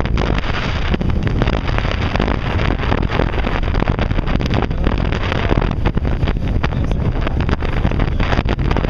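Wind buffeting the microphone on a moving ferry's open deck: a loud, gusty rushing with heavy low rumble.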